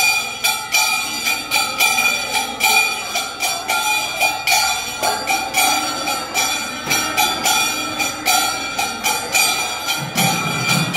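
Temple bells clanging in a fast, even beat, their ringing tones carrying on between strokes, mixed with jingling percussion during the ritual offering.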